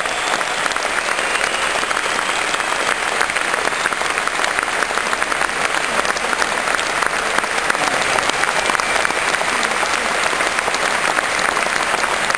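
A large indoor crowd applauding steadily, dense sustained clapping echoing around the arena.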